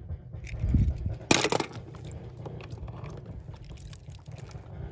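Water splashing in a plastic tub as a small die-cast toy car is dunked and handled, with one loud splash about a second and a half in, over a low steady rumble.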